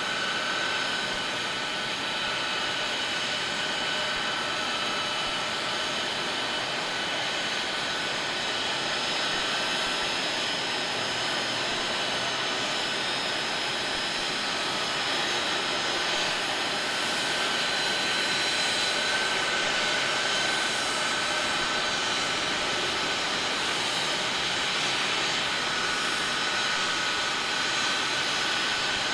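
Four Pratt & Whitney F117 turbofan engines of a C-17 Globemaster III at taxi power: a steady jet rush with several high whining tones that shift slightly and grow a little louder about two-thirds of the way through as the aircraft turns.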